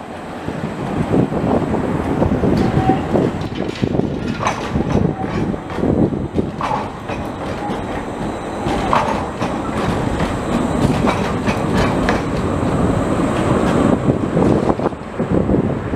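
Škoda 15T low-floor articulated tram running past on street track, its wheels clattering over the rails with many sharp clicks and a few brief, faint wheel squeals.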